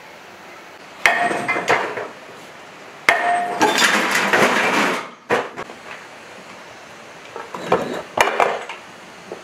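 Sledgehammer striking the old diesel engine's rusty metal parts: clusters of ringing metal clangs about a second in, from about three to five seconds in, and again near the end.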